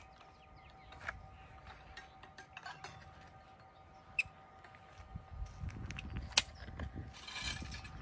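Caulking gun's trigger clicking sharply every second or two as it pushes a bead of adhesive out of its cartridge, over a faint steady high hum, with a low rumble near the end.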